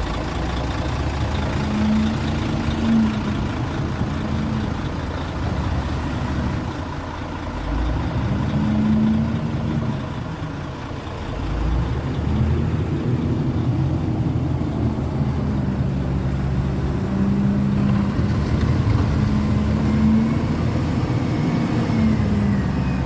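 Heavy truck engine revving up and dropping back again and again, working hard as the truck tries to drive free of wet sand.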